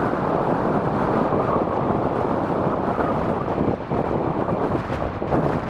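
Strong, gusty wind rushing over the microphone, with the engine noise of an Airbus A350-900's Rolls-Royce Trent XWB turbofans on short final mixed in beneath it.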